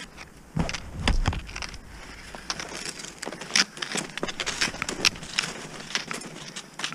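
Cross-country skis sliding on packed snow and ski poles planting in it: an uneven run of crunches and scrapes, with a couple of heavier low thumps about a second in.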